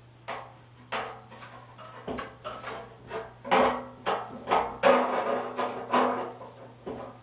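Metal clunks and scrapes as a kitchen faucet and its supply tubes are fed down through the deck hole of a stainless steel sink and settled onto the escutcheon plate. About ten irregular knocks, some followed by a short ringing from the sink.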